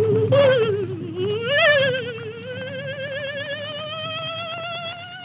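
A weird, trembling cry played as an eerie musical tone with fast vibrato over a low sustained chord. The tone swoops up and down in the first two seconds, then holds and slowly rises while growing quieter.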